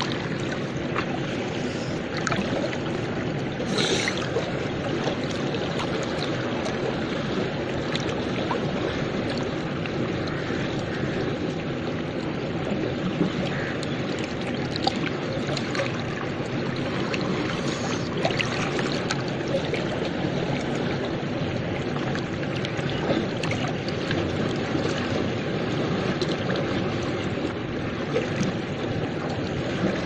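River water flowing, a steady rushing wash with small splashes and laps close by.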